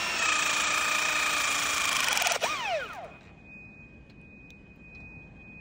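Milwaukee M18 HCCT-201C cordless hydraulic crimper running as it presses a cable lug: a steady motor whine for about two and a half seconds that then winds down with a falling pitch, leaving a faint steady high tone.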